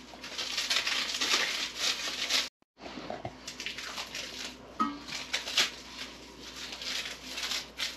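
Plastic packaging wrap crinkling and rustling as parts are unwrapped and handled. It is louder for the first couple of seconds, cuts out briefly, then carries on more quietly with a few small knocks.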